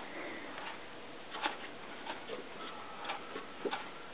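A few faint, irregular ticks and clicks over a quiet background.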